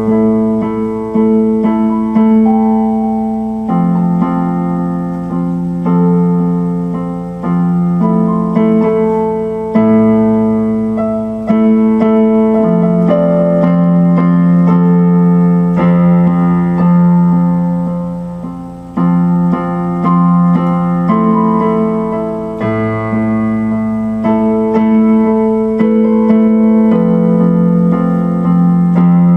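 Background music: electric piano or keyboard playing sustained chords that change every second or two.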